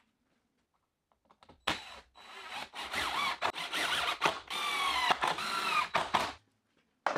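Cordless power driver running number 8 2.5-inch GRK washer-head screws into pressure-treated 2x6 lumber, in several short trigger bursts followed by a longer run, the motor's pitch wavering under load.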